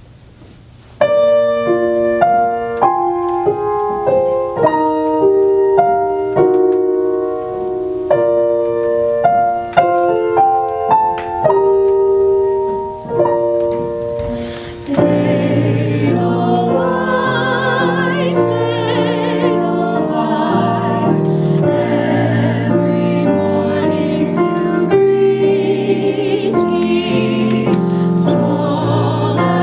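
Music: a piano plays alone, then about halfway through several voices come in singing in harmony with vibrato over the accompaniment.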